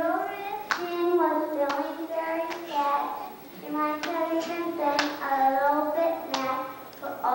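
A child singing held, gliding notes, with sharp hand claps roughly once a second.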